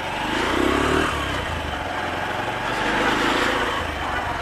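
Motorcycle engine running as the bike rides off at low speed, picking up twice as the throttle is opened, about a second in and again around three seconds in.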